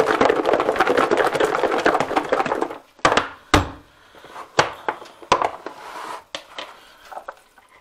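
A plastic food container of herring pieces and spices shaken hard for nearly three seconds, a rapid rattling clatter, to spread the pepper through the fish. Then a few separate plastic knocks and clicks as it is set down and its lid is pulled off, the loudest knock a little over half way in.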